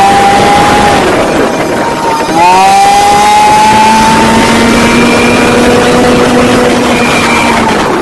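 Yamaha 40 hp outboard motor, freshly rebuilt with new piston rings, running and being revved: the engine note drops back about a second in, rises again about two and a half seconds in, holds, and eases down near the end.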